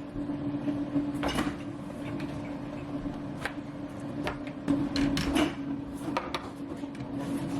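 Kitchen handling sounds: a scattering of short clicks and knocks, like cupboard doors and containers being moved, over a steady low appliance hum.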